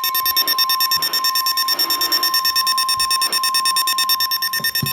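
Emergency alert attention signal: a steady high tone near 1 kHz, in the manner of the NOAA Weather Radio 1050 Hz warning alarm, sounding together with a harsh, rapidly pulsing buzz. The buzz stops right at the end while the steady tone carries on. It signals that a severe weather warning bulletin follows.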